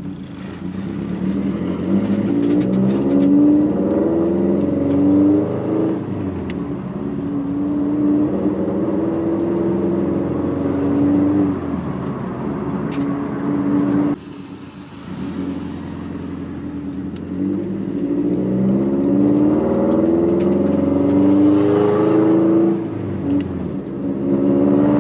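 Freshly rebuilt Subaru STI turbocharged flat-four heard from inside the cabin, accelerating through the gears. Its pitch climbs and falls back at each shift, several times over.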